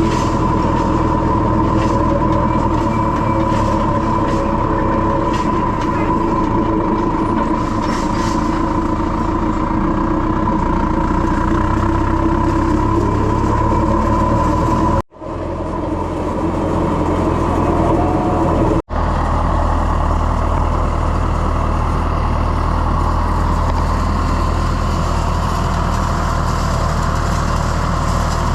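Farm tractor engine running steadily, with a constant high whine over the engine note. The sound drops out abruptly twice, about halfway through.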